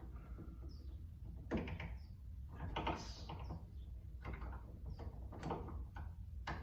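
A screwdriver prying at a snap-on cap on a front door lever handle, making a series of separate scrapes and clicks against the handle.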